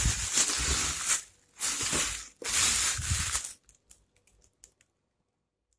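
Clear plastic bag crinkling and rustling in three bursts as it is worked off a small rice cooker, followed by a few faint clicks.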